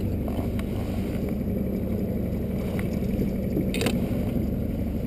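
Boat engine running steadily with a low, even hum, and a brief clatter a little before the end.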